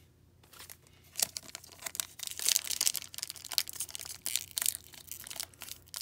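A foil wrapper on a 2018-19 Upper Deck Series 2 hockey card pack being torn open by hand. It starts about half a second in with a dense run of crackling tears and crinkles, which are loudest two to three seconds in.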